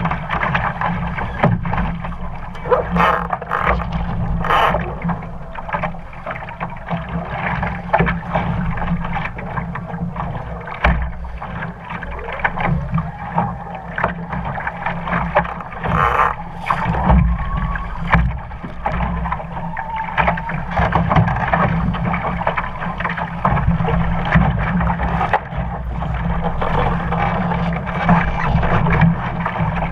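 Water rushing and slapping along the hull of an RS Aero sailing dinghy under way, with a steady low rumble and a handful of sharper hits.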